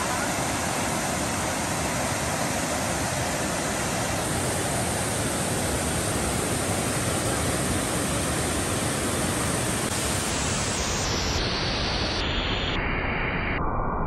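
Waterfall cascading over rocks into a river: a steady, even rush of water.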